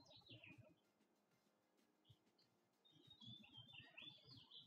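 Near silence with faint, high bird chirps in the background: a few at the very start, then a steadier run of chirping from about three seconds in.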